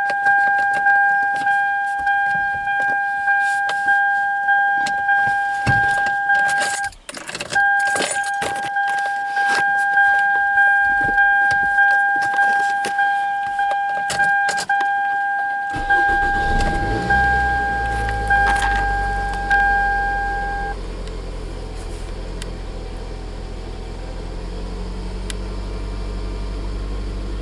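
A car's warning chime dings over and over, about one and a half dings a second, while keys rattle and click. About two thirds of the way in, the engine cranks, catches and settles into a steady idle, and the chime stops a few seconds later.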